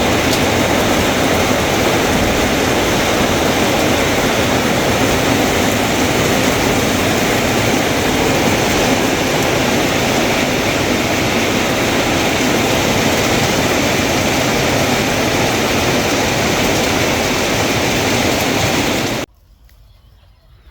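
Heavy rain falling, a loud, steady rushing hiss that cuts off suddenly near the end.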